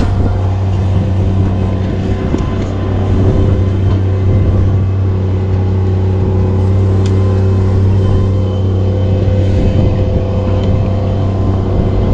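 A large engine running steadily at one speed, a deep even drone, from the heavy machinery working at the tree job.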